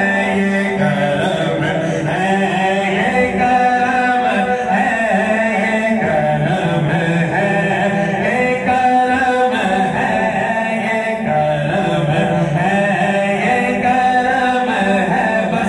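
Male voices singing a devotional Urdu naat, held notes and melodic runs without a break.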